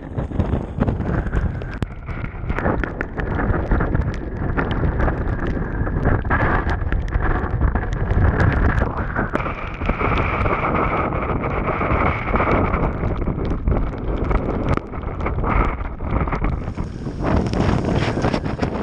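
Strong wind buffeting the microphone on open water, with a boat's motor running underneath and sharp knocks of water and gear against the hull.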